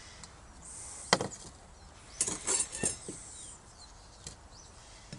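A metal wok set down on a table with one sharp knock, then a metal spoon clinking and knocking against the wok several times in quick succession about two seconds later.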